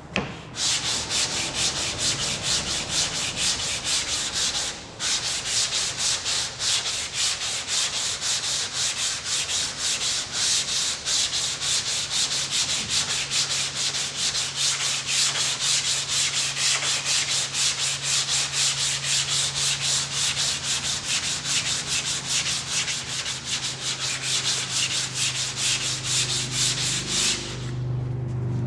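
Sandpaper on a flexible hand sanding block rubbed in rapid back-and-forth strokes over a car's quarter panel. There is a short break about five seconds in, and the sanding stops just before the end.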